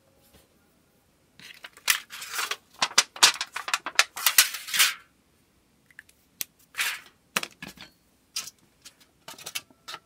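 Scissors cutting thin aluminum sheet from a flattened drink can, with the metal crinkling as it is handled: a close run of crisp snips and rustles in the first half, then scattered snips and taps.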